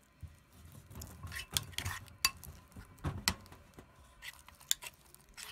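Metal spoon stirring glue-and-detergent slime in a bowl, with a run of irregular clinks and scrapes against the bowl.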